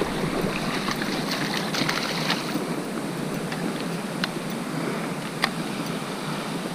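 Steady wind noise over open water, with a few faint ticks.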